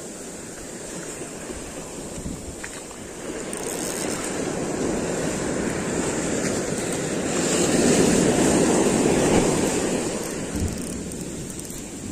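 Ocean surf washing up a sandy beach: a wave's rush builds over several seconds, is loudest about two-thirds of the way through, then eases off as the water draws back.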